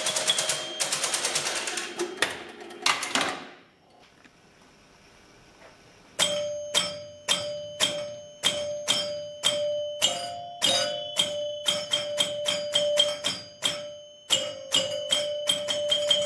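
Electromechanical pinball sounds: about three seconds of rapid mechanical clatter, a short lull, then bell-like chime strikes about twice a second, each ringing on briefly, the pitch changing a little between some strikes.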